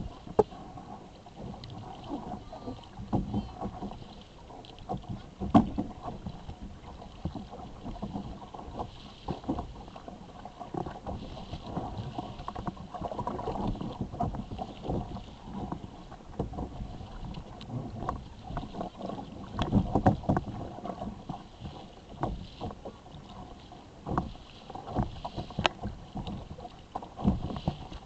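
Sea water splashing and slapping irregularly against the hull of a plastic sit-on-top sail kayak as it moves, with a steady wash of water underneath.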